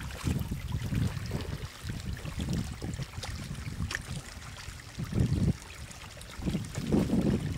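Shallow muddy water splashing and trickling as stranded catfish thrash in it and are scooped up by hand, over a steady low rumble. The splashing swells louder a little after the middle and again near the end.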